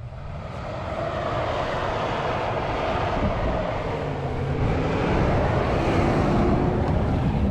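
Toyota Land Cruiser's 4.7-litre V8 engine pulling under load as the SUV ploughs up a deep-snow track, its tyres churning the snow. It grows steadily louder as it comes up close and passes.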